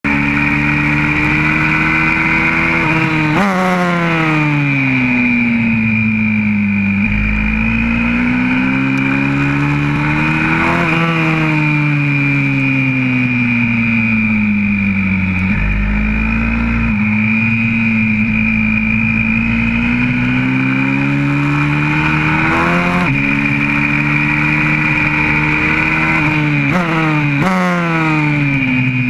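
YCF 125cc four-stroke single-cylinder pit bike engine heard from on board, running hard around a circuit. Its pitch swings up and down over and over as the rider accelerates out of corners and rolls off into them.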